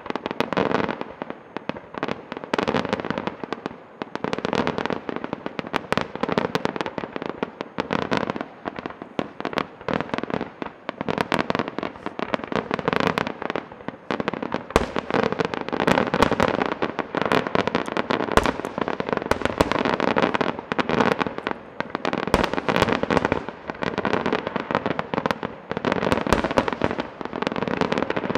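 Aerial fireworks display: a dense, continuous barrage of shell bursts and bangs, many a second, with no let-up.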